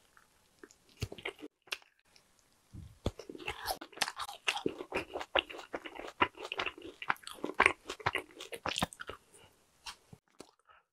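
Close-miked chewing of a sticky, stretchy marshmallow: a few faint mouth clicks at first, then from about three seconds in a dense run of chewing with many sharp clicks, thinning out near the end.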